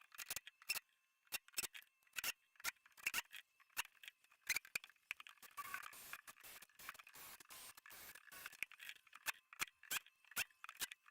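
Hand work on cement board: an irregular run of short sharp clicks and scrapes, several a second, with no motor running.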